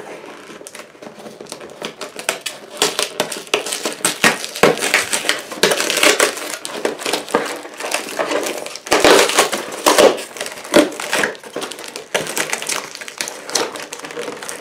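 Clear plastic strapping and tape crinkling and crackling as hands pull and twist it against a cardboard box, with rustling of cardboard and paper. The handling is busiest about six seconds and ten seconds in.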